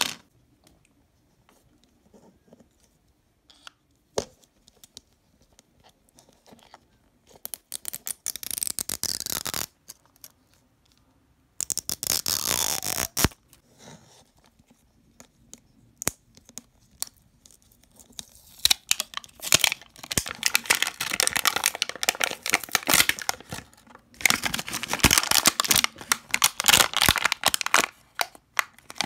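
Glittery plastic wrapper of a Mini Brands capsule ball being torn and peeled off, crinkling and crackling. It comes in two short bursts, then runs almost without a break over the last ten seconds, after a sharp click at the very start and a single knock about four seconds in.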